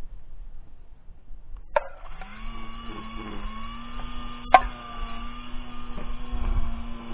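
A small motor humming steadily at an even pitch, starting about two seconds in, with a few sharp clicks.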